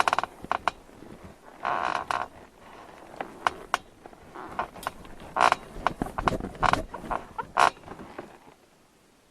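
Bed frame creaking and squeaking under movement: an irregular series of short creaks and clicks, growing stronger in the middle and dying down near the end.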